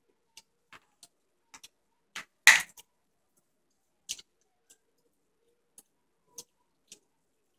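Scattered small clicks and taps from hands handling Play-Doh and its plastic tub on a tabletop. One louder, longer noise about two and a half seconds in, and another just after four seconds.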